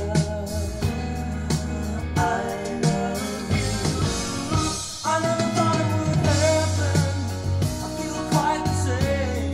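A rock song with singing, drums and a strong bass line, playing on the car's newly installed JL Audio sound system with its Helix U10A active subwoofer.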